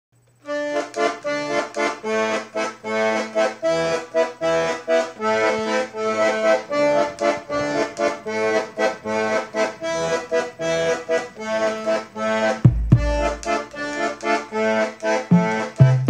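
Lively instrumental background music that starts about half a second in: short rhythmic chords over a bass line, with a deeper bass coming in about three-quarters of the way through.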